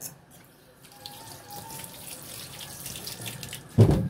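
Water running from a kitchen tap into a sink, building from about a second in, with a loud thump near the end.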